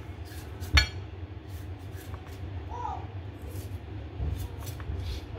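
Kitchen knife slicing ginger on a plastic cutting board: a run of light, uneven taps of the blade on the board, with one sharp, louder knock just under a second in. A steady low hum runs underneath.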